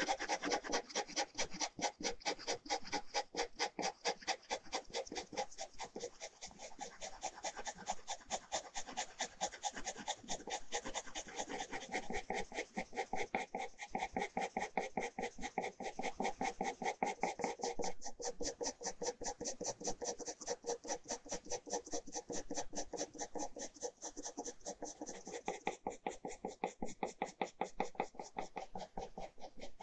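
Ballpoint pen hatching on paper: quick, even back-and-forth strokes, several a second, as the pen tip scratches shading lines into a portrait.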